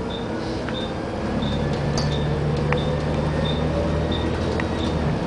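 Bus engine running as the bus drives along, heard from inside on the upper deck; the engine hum grows stronger about a second in and drops back near the end. A short high tick repeats about every two-thirds of a second.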